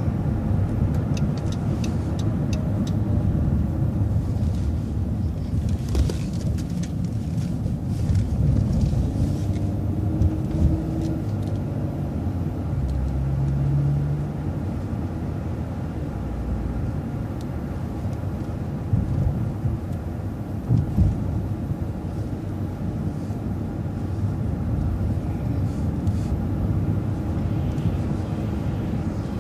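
Transit bus driving, heard from inside: a steady low rumble of engine and road, with a brief rising whine about nine seconds in as it picks up speed.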